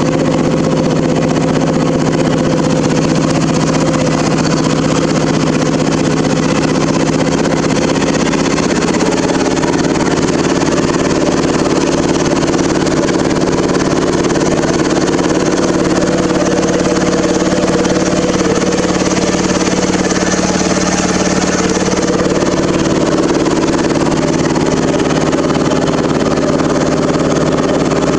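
Poulan riding mower engine running steadily as the mower drives through floodwater, its note shifting slightly about nine seconds in.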